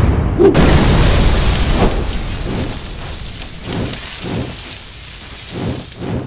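A fiery blast sound effect: a loud burst of rushing, crackling noise that fades over about three seconds, followed by a few softer swells near the end.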